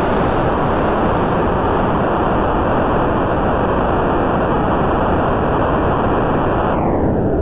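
Synthesized noise from the DIN Is Noise software synthesizer's noise instrument: a steady, loud, dense hiss cut off above about 2 kHz. Near the end its upper edge glides down an octave to about 1 kHz, the instrument's octave shift at work.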